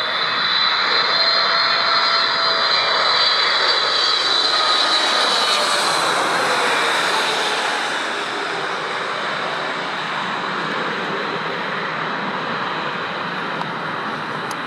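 Heavy jet airliner passing on its landing approach. Engine whine and jet rush are loudest in the first half, the pitch drops as the aircraft goes by, and a steadier, quieter rush follows.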